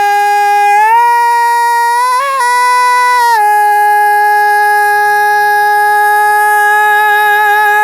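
A single unaccompanied singing voice holding the long final note of the song. It steps up in pitch about a second in, wobbles briefly and goes higher near two and a half seconds, then falls back to the first pitch and holds it, with a slight vibrato near the end.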